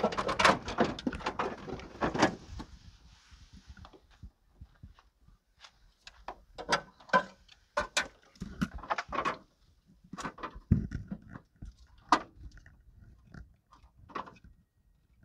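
Handling noise: irregular knocks, clicks and crunching as the camera is moved about and set down on sandy dirt. The densest cluster comes in the first two seconds over a light hiss, then single sharp knocks are scattered through the rest.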